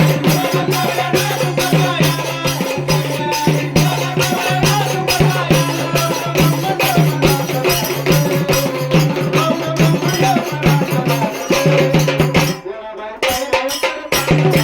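Marathi devotional folk music with a fast, even percussion beat over a steady drone and a wavering melody line; the music drops out briefly near the end, then comes back in.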